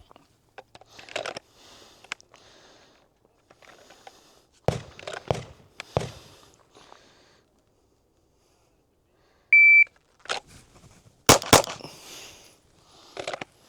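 A shot timer gives one short, high beep, and under two seconds later a Glock 19X pistol fires two quick shots. These come after a few scattered clicks and knocks from the pistol being handled.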